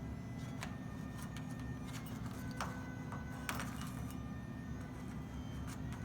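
Scattered light clicks and clinks of small toys being picked through and knocked about by a cockatoo, over a steady low hum.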